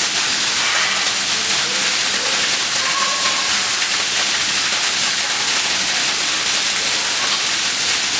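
Steady rushing hiss like running or falling water, even in level throughout, with a faint low hum under it.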